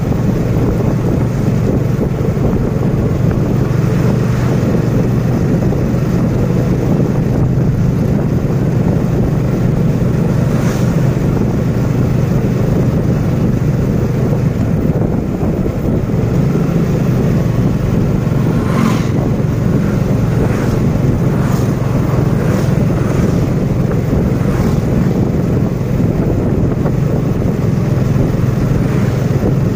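Motorcycle riding along at a steady speed: a steady engine hum under loud wind rush on the microphone, with a few short, sharper sounds about two-thirds of the way through.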